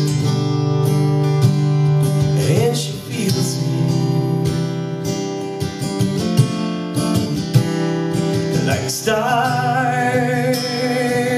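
Acoustic guitar strummed in a live folk song, with a long wavering note coming in about nine seconds in.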